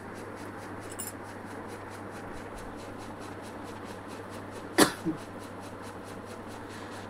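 A person's short, sharp cough about five seconds in, with a smaller second cough right after, from someone with a cold; a steady low hum underneath.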